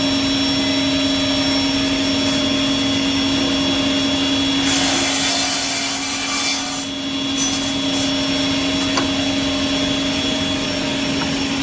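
Woodmaster 1.7 m double-end cut-off saw, its two circular-blade motors running with a steady hum. About five seconds in, a blade cuts through a stack of wooden boards, a burst of loud hissing noise lasting about two seconds, followed by a couple of short bursts.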